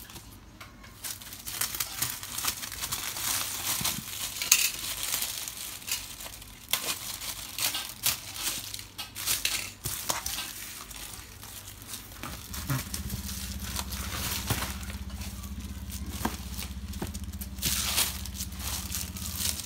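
Thin black plastic bag crinkling and rustling as it is crumpled and pulled off a cardboard box, in a long run of irregular crackles.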